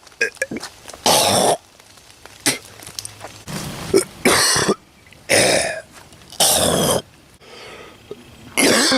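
Human coughs and throat-clearings, one after another: about seven short, harsh bursts, each well under a second, with brief pauses between them.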